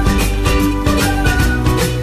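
Background music with a steady beat and plucked-guitar-like melody.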